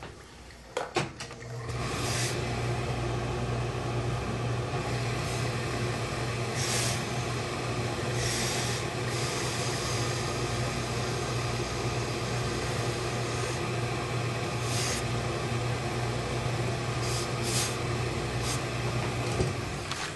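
Industrial steam pressing iron at work on shirt fabric: a couple of clicks about a second in, then a steady machine hum with a hiss under it. Several short puffs of steam hiss cut in, and the hum stops just before the end.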